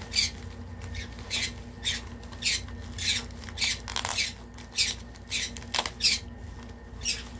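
Pet birds squawking repeatedly: short, shrill calls coming about every half second.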